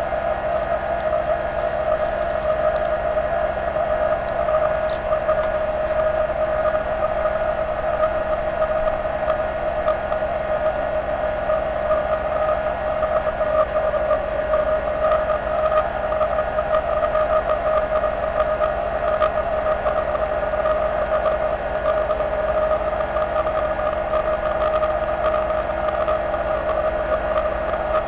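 Lathe converted to CNC running a turning cut: a steady whine from the machine's drive, with the cutting tool working a spinning workpiece into curly chips.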